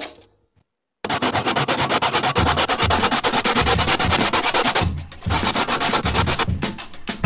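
Backsaw rasping back and forth through a wooden block, stroke after stroke. It starts about a second in and pauses briefly around five seconds.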